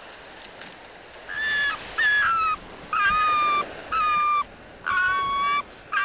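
Arctic fox vixen giving a series of high, piercing screams, about one a second, starting a little over a second in, each call falling slightly in pitch. This is her defensive call, driving an intruding male away from her den and cubs.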